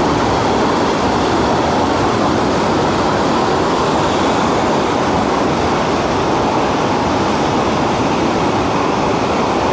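Heavy, fast-flowing mountain river or cascade rushing loudly and steadily.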